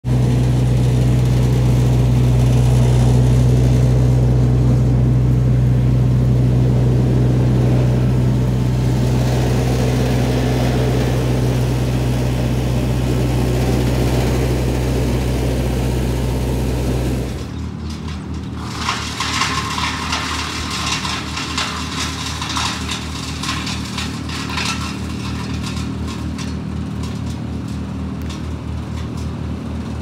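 Engine of a large tracked wood chipper running steadily as the machine is driven along. About halfway through, the sound changes abruptly to a quieter, pulsing engine note with crackling and rustling over it.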